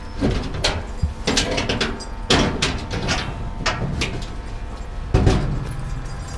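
Irregular knocks and clatters, with two heavier thumps about two and five seconds in.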